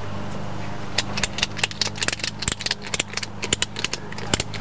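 Roof tie-down strap being pulled tight over a canoe: a quick, irregular run of clicks and rattles from the strap and buckle starts about a second in, over a steady low hum.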